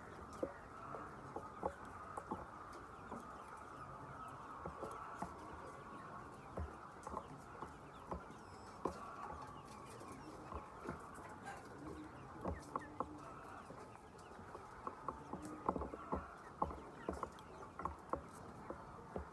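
Chickens clucking softly in a flock, with many short sharp taps scattered throughout, a few a second at times.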